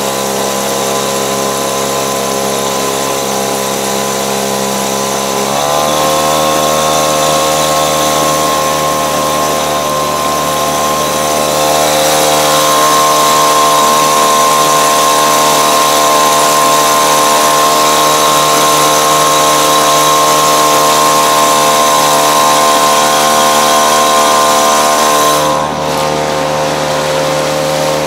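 Small outboard motor on an inflatable boat running at speed. About five seconds in it speeds up to a higher, steady pitch, and near the end its sound dips briefly and shifts.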